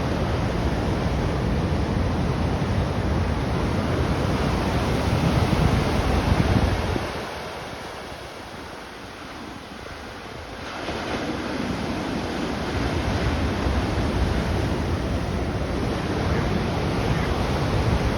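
Ocean surf with wind buffeting the microphone: a steady low rush that eases off for a few seconds midway, then returns.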